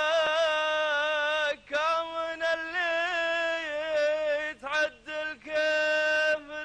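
A single man singing the lead chanted verse of an ardha war dance, unaccompanied. He holds long notes with a wavering, ornamented pitch and takes short breaths about a second and a half in and again near the end.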